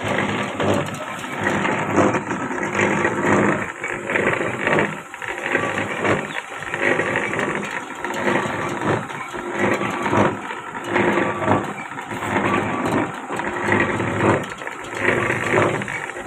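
Cardboard-making machine running: rollers and wet felt turning through the pulp vat, a steady mechanical rumble and clatter that swells and dips unevenly.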